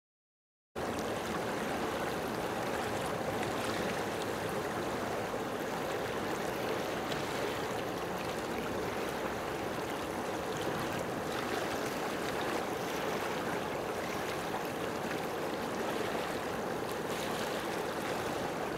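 Steady rush of flowing water that cuts in suddenly under a second in and holds at an even level.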